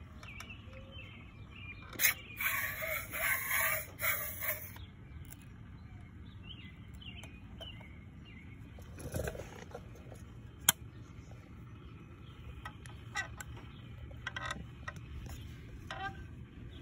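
Handling noise as an outboard water pump housing is worked down the driveshaft onto the gearcase: a loud scratchy rustle lasting about three seconds starts two seconds in, followed by a few sharp clicks of metal parts. Faint bird chirps sound in the background.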